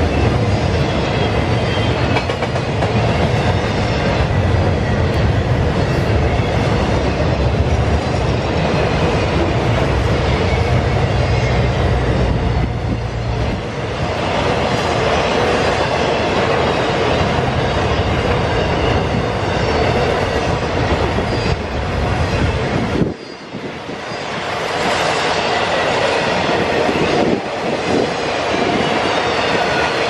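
Double-stack intermodal freight cars rolling past close by: a steady rumble of steel wheels on the rails with rhythmic clatter. The sound dips briefly about three-quarters of the way through.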